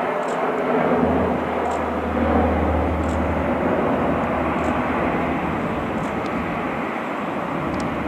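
Saab 340B twin-turboprop climbing away after takeoff: its engines and propellers give a low steady hum over a wide rushing noise, gradually getting quieter as it moves off.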